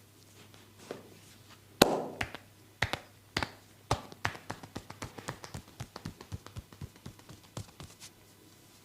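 Hands slapping and tapping on bare skin during a massage. A few loud, sharp slaps come about two seconds in, followed by a quicker run of lighter taps, about four a second, that fades out near the end.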